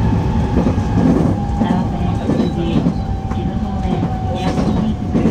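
Electric commuter train heard from inside its front car, running over the points with a low rumble and a few sharp wheel clacks, while a steady whine slowly drops in pitch as the train slows.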